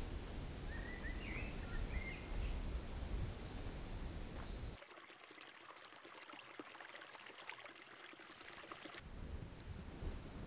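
Low steady outdoor rumble with a few short bird chirps in the first seconds. After about five seconds the rumble drops away, and just before the end a common kingfisher gives a quick run of short, high, piercing whistles, the loudest sounds here.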